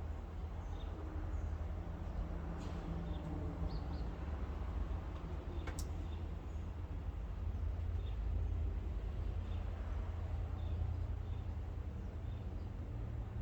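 A steady low rumble with faint, scattered bird chirps and two sharp clicks, about two and a half and six seconds in.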